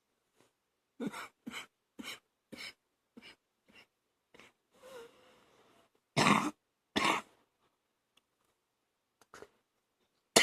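A woman coughing on phlegm: a run of about eight short coughs that weaken one after another, a breath drawn in, then two loud coughs, a faint one, and a last loud cough at the end.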